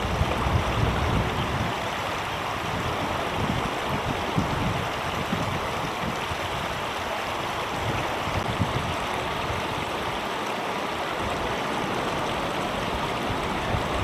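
A stream rushing over rocks: a steady, even wash of water noise, with a low rumble underneath that comes and goes.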